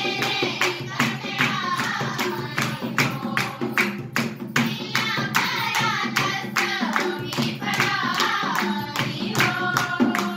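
A group of girls singing together to steady rhythmic hand clapping and a dholak drum.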